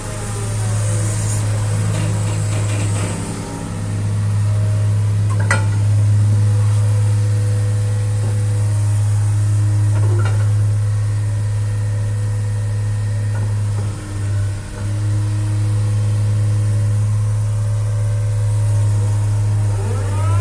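Diesel engine of a 2007 Atlas-Terex TW160 wheeled excavator running steadily, with a couple of sharp clicks and a short dip in level partway through. Near the end a rising whine comes in as the engine speeds up.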